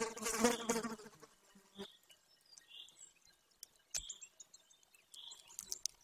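A flying insect buzzing close to the nest camera's microphone for about a second at the start, then faint sharp clicks and ticks as a golden eaglet tears at its prey on the nest, with short faint high chirps in the background.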